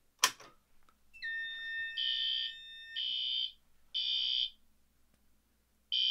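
Fire-Lite BG-12L pull station pulled with a sharp click, then a fire alarm speaker-strobe sounds an evacuation tone: a steady electronic tone starts about a second in, and it gives way to horn-like pulses in a temporal-3 pattern, three half-second blasts about a second apart, a pause, then the pattern starting again near the end.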